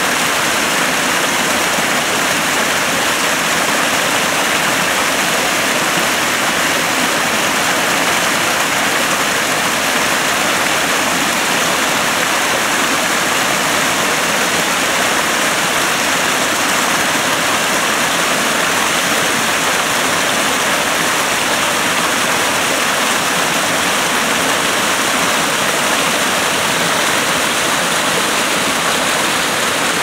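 Small brook tumbling over rocks in little cascades: a steady, even rush of splashing water.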